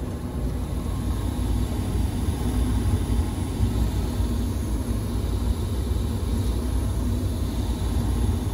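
Borg Warner gas-fired furnace running with the burners lit and the blower fan on: a steady low rumble with a faint hum.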